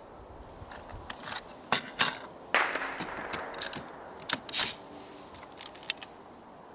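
A string of irregular sharp cracks and clicks from an AR-15 rifle, about eight in all, the loudest about four and a half seconds in; one about two and a half seconds in rings on briefly.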